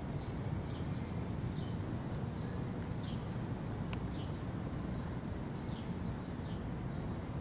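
A small bird chirping again and again, short high calls about once a second, over a steady low rumble.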